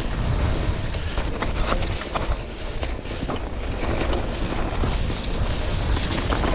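Mountain bike riding over a dirt trail: a steady rumble with frequent clicks and rattles from the tyres and bike, and a faint high chirping from about one to two and a half seconds in.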